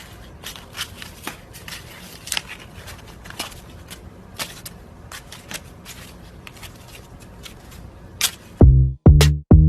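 Irregular light clicks, taps and rustles over a low hiss. Near the end, loud electronic music with a drum-machine beat cuts in.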